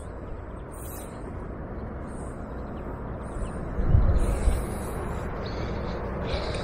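Steady rushing outdoor background noise with scattered bird calls, crows starting to caw near the end. A brief low thump about four seconds in is the loudest sound.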